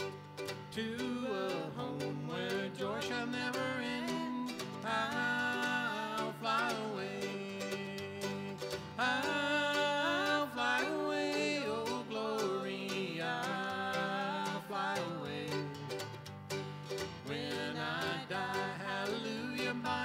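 Country-style background music with plucked string instruments.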